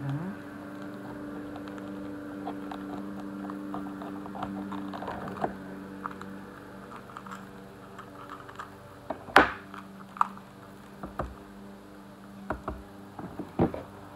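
Kitchen knife clicking and tapping on a cutting board as small green chili peppers are cut: scattered light clicks, with a sharper knock about nine seconds in and several more near the end. A steady low hum sits underneath, strongest in the first five seconds.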